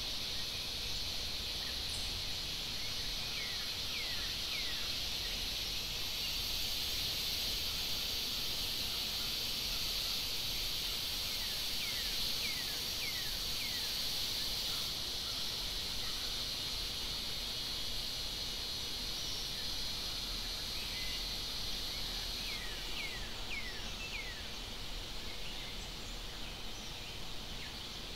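Forest ambience: a steady high insect drone, which eases off somewhat about three-quarters of the way through, with a bird calling several times in quick runs of three or four short falling notes.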